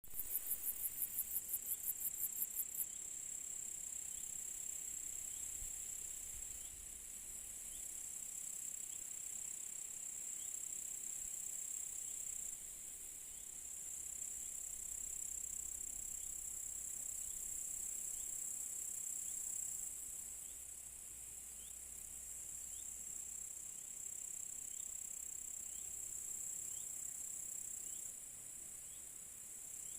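Crickets chirring in a steady, high-pitched trill. For the first three seconds a nearer insect pulses rapidly at about six pulses a second, and faint short chirps repeat every second or two in the background.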